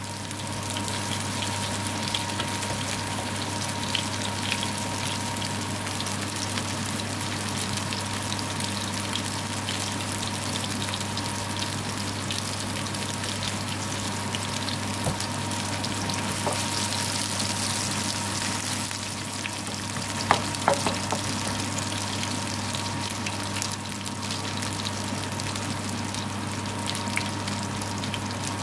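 Minced-meat patties (shammi kebabs) shallow-frying in hot oil in a frying pan, a steady dense sizzle and crackle. A few sharper clicks stand out about two-thirds of the way through.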